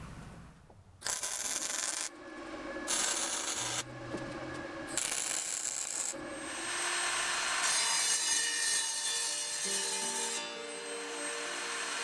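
Gas-shielded MIG welder tack-welding a steel door frame: four short bursts of arc crackle, the last one longer. Music comes in under the last weld and carries on after it.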